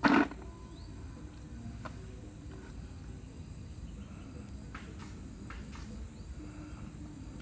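A short splash of water from the bucket at the water's edge near the start, then a quiet background with a steady high insect drone and a few faint splashes about two-thirds of the way in.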